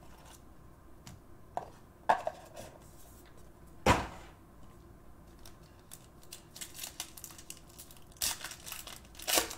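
Foil trading-card pack handled on a tabletop: a couple of light taps, then a sharp knock about four seconds in. In the last few seconds the wrapper is torn open and crinkled.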